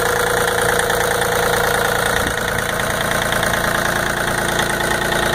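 A 2005 John Deere 3203 compact tractor's three-cylinder diesel engine idling steadily.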